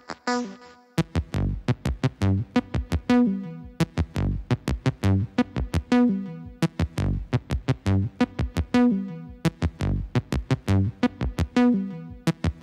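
Electronic background music: a drum-machine beat with synthesizer notes. The beat and a heavy bass kick in about a second in.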